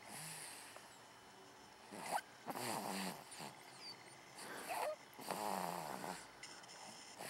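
Snoring in deep sleep: two snores about three seconds apart, each a rough breath that slides down in pitch.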